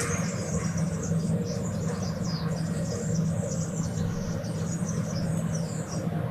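Many small birds chirping and trilling busily over a steady low hum of distant city traffic.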